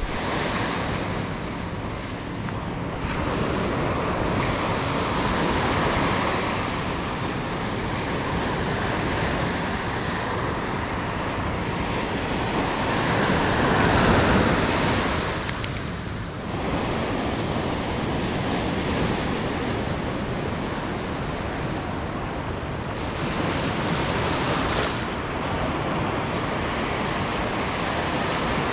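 Small ocean waves breaking on a sandy beach and washing up the shore, a steady rushing that swells and eases as each wave comes in, loudest about halfway through.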